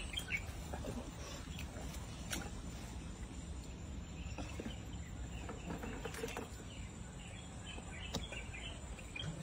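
Rural outdoor ambience: a steady high insect trill, scattered faint bird chirps and a low background rumble, with a few brief soft clicks.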